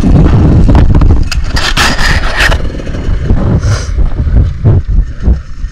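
Loud vehicle rumble with repeated knocks and clatter, and a hissing rush between about one and a half and two and a half seconds in.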